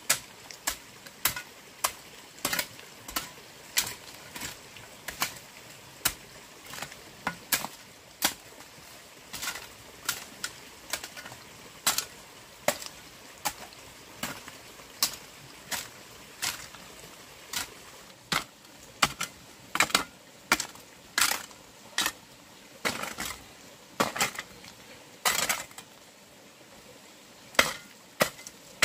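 Repeated sharp strikes of a hand tool on wood, about one or two a second at an uneven pace, heavier in the second half, with a short pause near the end.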